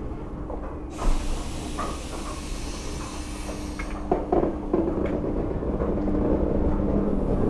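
SNCF Z 6400 electric multiple unit starting away from a platform. About a second in a loud hiss of air sets in for some three seconds, typical of the air brakes releasing. Then come a few clanks and a steady, growing hum of the motors as the train begins to roll.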